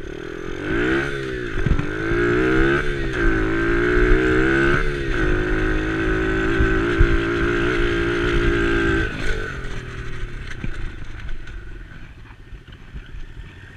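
Small dirt bike engine under way: the revs rise and fall several times in the first five seconds, then hold steady. About nine to ten seconds in, the throttle is shut and the engine drops to a quiet idle as the bike rolls to a stop.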